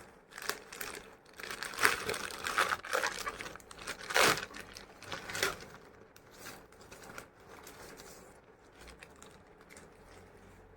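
Delivery packaging being opened by hand: irregular crinkling and tearing of the wrapping, busiest in the first half and tapering off to faint rustles.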